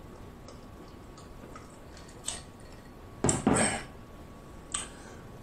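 A man drinking from a glass pitcher: faint swallowing clicks, then a pair of louder mouth-and-breath sounds about three seconds in as he stops drinking, and another brief one near the end.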